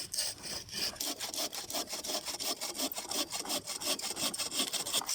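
Saw cutting firewood by hand, in quick, even back-and-forth strokes that stop abruptly at the end.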